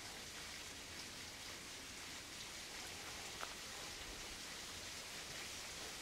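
Faint, steady outdoor background hiss, with one small click about three and a half seconds in.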